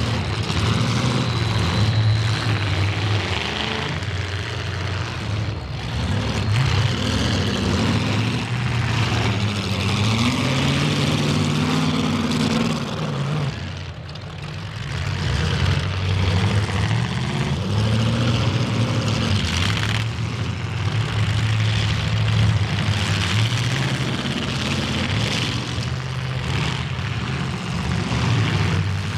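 Demolition derby cars' engines running and revving, their pitch rising and falling again and again, with the engine noise dipping briefly about fourteen seconds in.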